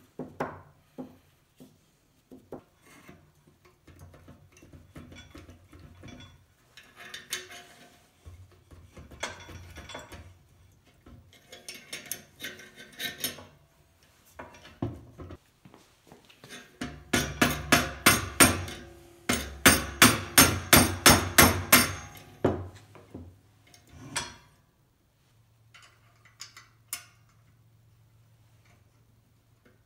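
Metal parts of a hose reel's crank handle assembly clinking and knocking as they are handled and fitted, with a fast run of sharp taps, about three a second, in the middle.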